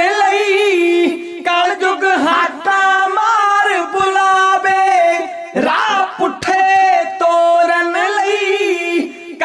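Kavishri singing: male voices singing a Punjabi verse together in long, drawn-out held notes, with short breaks between phrases.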